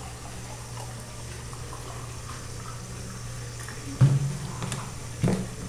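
Blended tomato-and-acerola juice poured from a plastic bottle into a stemmed glass. Near the end come two sharp knocks, a little over a second apart.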